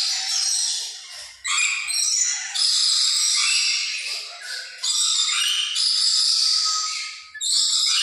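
Caged parrots screeching and chattering in a dense, high-pitched din, with loud bursts breaking in about a second and a half, five and seven and a half seconds in.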